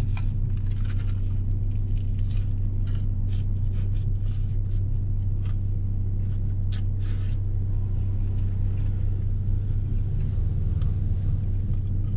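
Steady low hum of a car idling, heard from inside the cabin. Over it, a person bites into and chews a chicken burger: irregular short crunching and smacking sounds through roughly the first seven seconds, then the hum alone.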